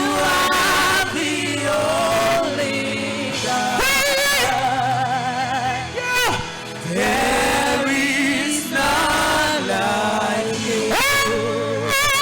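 Live gospel worship music: a singer holding long notes with heavy vibrato and sliding runs, over a steady band accompaniment, with no clear words.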